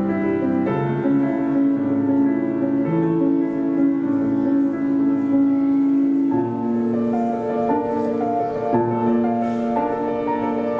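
Slow, gentle instrumental music led by piano, with long held notes that change every second or two.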